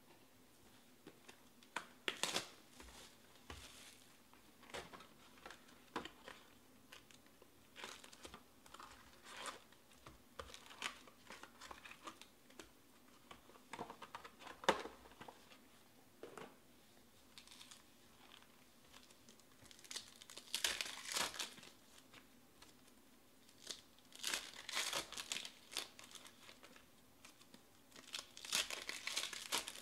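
Hands opening a cardboard trading-card box and tearing open and crinkling foil card packs: scattered clicks and short rustles, with longer spells of crinkling about twenty seconds in, again a few seconds later, and near the end.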